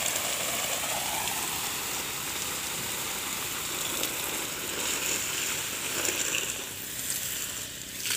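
Water from a hose spraying onto banana leaves and undergrowth, a steady splashing that eases a little near the end.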